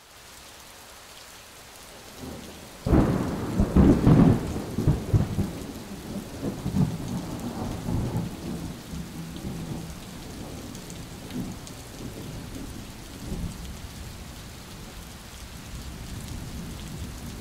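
A deep rumble that starts suddenly about three seconds in and rolls on, slowly fading, over a steady hiss.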